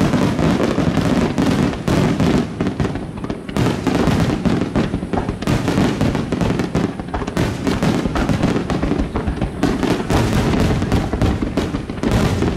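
Large aerial fireworks display: a dense, continuous volley of shell bursts and crackling, with booms heavy in the low end.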